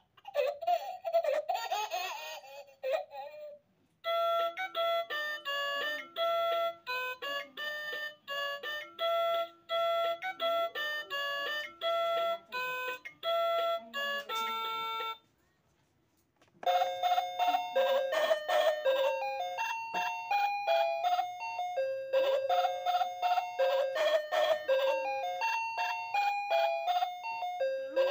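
Background music: a quick melody of short, bell-like notes that stops for about a second midway and then goes on. In the first few seconds a voice is heard before the music starts.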